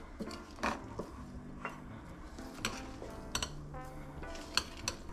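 Metal spoon stirring a thick, moist potato mixture in a glass bowl, clinking and scraping against the glass at irregular moments.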